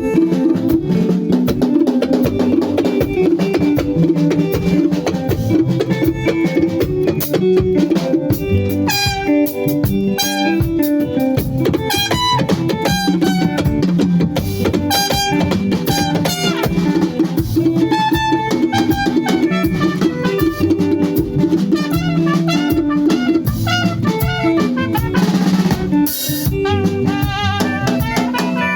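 Band music at steady volume: a drum kit keeps the beat with bass drum and rimshots under guitar and bass. A lead melody with vibrato comes in about a third of the way through.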